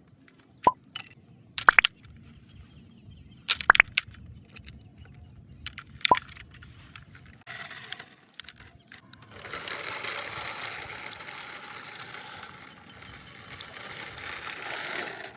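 Toy remote-control police car being handled: a few sharp plastic clicks and snaps, then a steady whirring noise for about six seconds, with a short dip partway through, that cuts off near the end.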